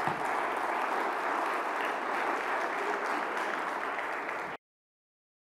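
Audience applauding, a steady dense clapping that cuts off abruptly about four and a half seconds in.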